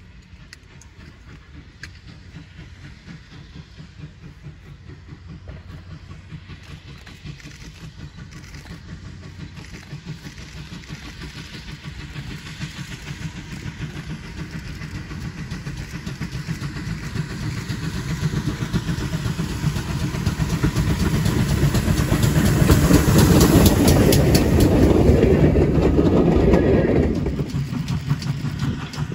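GWR 6400 class pannier tank steam locomotive approaching along the line, its exhaust beats and running growing steadily louder until it is close. The sound drops away abruptly near the end.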